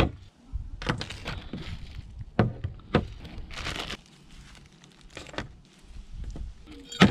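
Plastic packaging bags crinkling as parts of an electric telescope focuser kit are handled, with a few knocks as the pieces are set down on a table, the loudest near the end.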